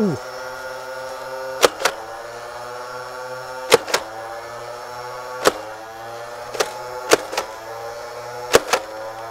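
Nerf Mega Motorstryke's electric flywheel motor whining steadily while the blaster is fired semi-automatically, with about six shots, each a sharp click or double click, one every one to two seconds. After each shot the motor's pitch dips and climbs back up as the flywheels regain speed; the shots are spaced out so the flywheels are at full speed for maximum range.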